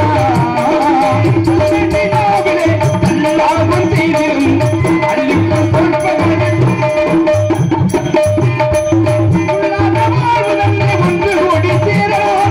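Live Tamil folk-drama music: a barrel drum beaten in a steady, repeating rhythm under a held note and a wavering melody.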